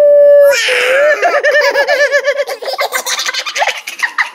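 A toddler girl's long, high-pitched squeal breaks off about half a second in, then turns into quick, repeated giggling laughter.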